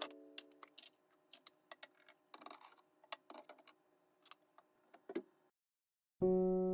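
Scattered faint clicks and clinks of small hard objects being handled, a dozen or so short taps spread over about five seconds, with background music fading at the start and starting again near the end.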